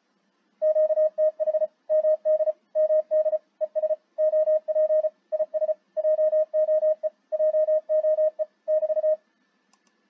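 Morse code (CW) from a Flex 6600M software defined radio: one steady pitched tone keyed on and off in short dits and longer dahs, sending a speech-converted location message. It starts about half a second in and stops a little before the end.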